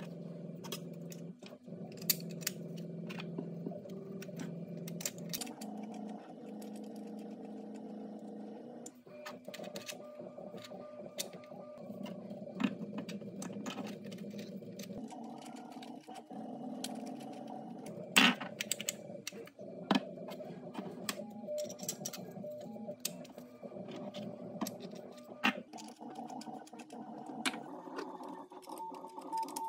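Hard 3D-printed plastic parts clicking, knocking and rattling as a toy motorbike kit is fitted and screwed together by hand, with one sharper knock about two-thirds of the way through. Under the clicks runs a steady layer of held low tones that change every few seconds.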